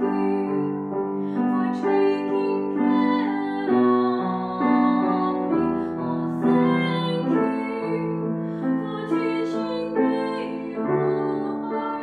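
A woman singing a slow song while accompanying herself on a Steinway grand piano.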